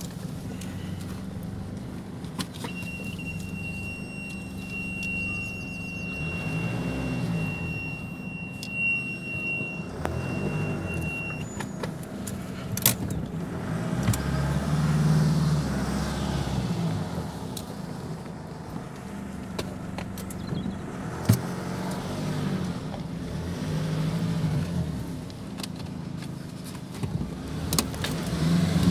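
The 2006 Nissan Navara D40's 2.5 dCi four-cylinder turbodiesel engine pulling as the pickup is driven over rough off-road ground, its revs rising and falling with the throttle. A couple of sharp knocks come through, and a thin high whine holds for several seconds early on.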